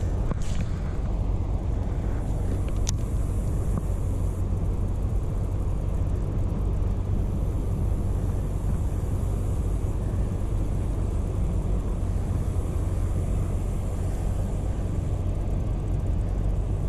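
Wind buffeting the microphone: a steady low rumble that flickers in level. A couple of faint sharp clicks come near the start and about three seconds in.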